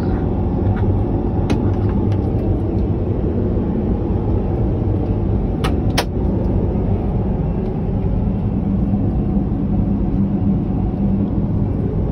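Steady low rumble of a Boeing 787-9 airliner in cruise heard inside its lavatory: airflow and engine noise through the cabin. A few light clicks come through it, one about a second and a half in and a pair around six seconds in.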